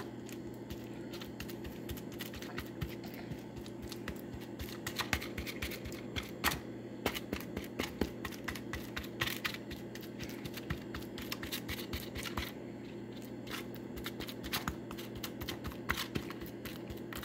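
Plastic spoon stirring a mix of tuna and cheese in a foam bowl: irregular scraping and clicking of the spoon against the bowl, over a steady low hum.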